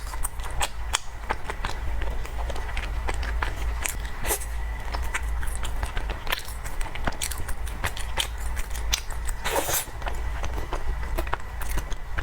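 Close-miked mouth sounds of someone eating soft cream cake: wet chewing with a steady run of sticky clicks and lip smacks, and one longer wet smack about nine and a half seconds in. A steady low hum runs underneath.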